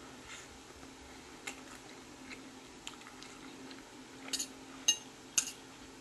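Quiet chewing of a mouthful of noodles, then a metal fork clinking against a plate three times in quick succession, the sharp clicks ringing briefly.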